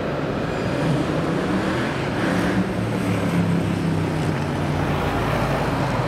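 City road traffic: a steady wash of vehicle noise with a low engine hum, a car's low rumble building near the end as it approaches on the road.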